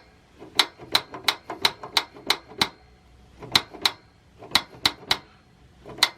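Mr. Heater Buddy propane heater's piezo igniter clicking over and over, about three clicks a second in short runs, as it tries to light the pilot on propane.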